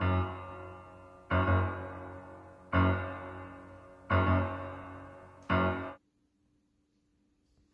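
Background piano music: a heavy low note or chord struck about every second and a half, five times, each left to ring and fade. It cuts off suddenly about six seconds in, leaving near silence.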